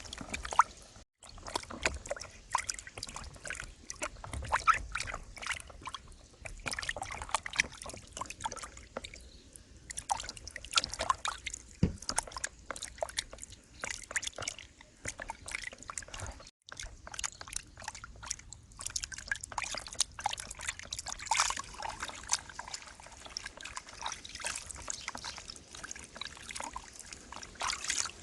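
Fish deep frying in hot soybean oil: a steady sizzle with dense, irregular crackling and popping.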